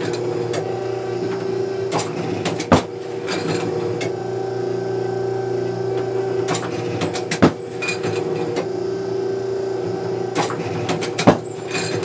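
Automatic clay target trap machine in its trap house: a steady hum, with three sharp loud bangs about four to five seconds apart, each coming just under a second after a softer clack. These are the machine's throws and the shotgun shots at the clays.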